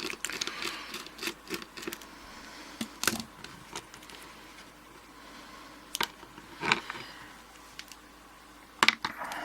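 Small metal clicks, taps and scrapes as the parts of an Abus 72/40 padlock are handled and fitted by hand, with a few sharper clicks scattered through.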